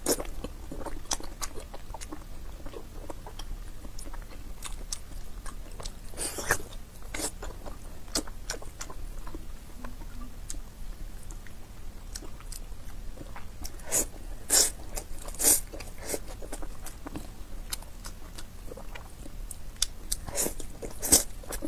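Close-miked eating: wet chewing and mouth clicks as a chunk of pork belly and spicy buckwheat knife-cut noodles are chewed, with a few louder slurps of noodles, the loudest in the second half.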